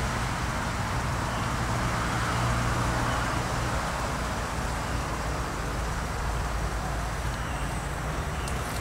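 Steady low rumble with a soft hiss over it, unchanging throughout.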